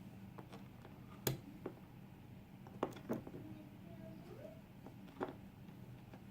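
Scattered small clicks and taps of metal tools handling a picked DOM ix dimple lock cylinder as it is taken apart, five or so in all, the loudest a little over a second in, over a low steady hum.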